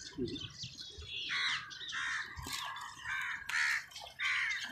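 Crows cawing, several short harsh calls one after another.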